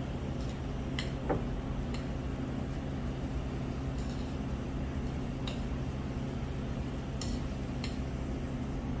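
Occasional light clinks of tableware, about six short taps spread out, over a steady low room hum.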